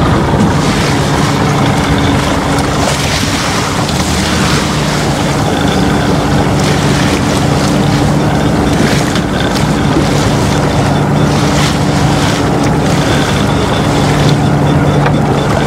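Fishing boat's engine running steadily underway, with a dense wash of wind and water noise over it.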